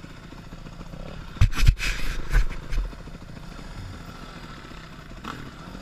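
Dirt bike engines idling low and steady, with a cluster of loud thumps and noisy bursts from about a second and a half to nearly three seconds in.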